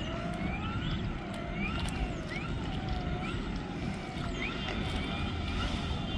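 Electric motor and propeller of an RC float plane whining as it taxis on the water, the pitch rising and falling with the throttle, over steady wind rumble on the microphone.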